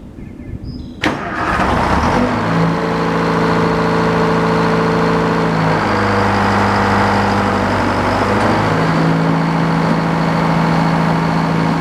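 Old-time sawmill's engine starting about a second in and then running, its speed changing a few times before it settles into a steady run.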